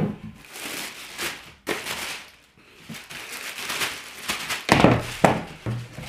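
Plastic packaging rustling and crinkling as robot vacuum parts are unpacked, with a few sharp knocks of parts being handled.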